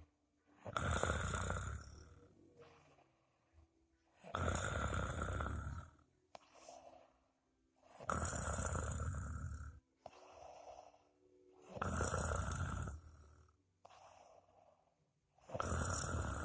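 A sleeping person snoring: a loud rasping snore about every three and a half to four seconds, five in all, with softer breathing sounds between them.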